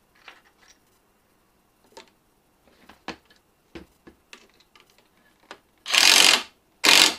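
Small clicks and taps of screws and tools being handled, then a cordless right-angle driver runs in two short bursts near the end, driving a stainless steel screw through a PVC tee into a hardwood handle.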